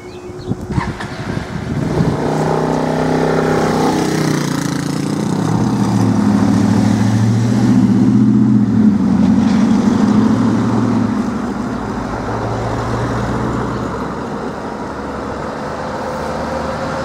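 Road vehicles pulling away and driving over the level crossing as the barriers lift, their engines accelerating past and swelling to a peak midway before easing off. The crossing's repeating alarm tone stops just under a second in.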